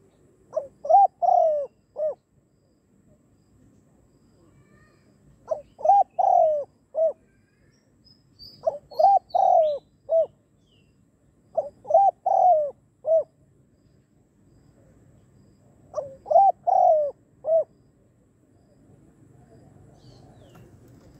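Caged decoy spotted dove cooing: five short phrases of several low, rounded coos each, a few seconds apart.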